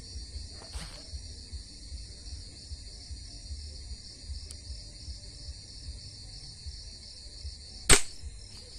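Night insects trilling in a steady, high, pulsing chorus, broken about eight seconds in by a single sharp, loud shot at the animal in the branches.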